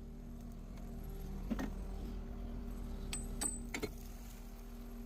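Concrete pump truck running steadily in reverse, drawing foam cleaning balls and water back through the boom. A few short sharp knocks sound over the steady hum.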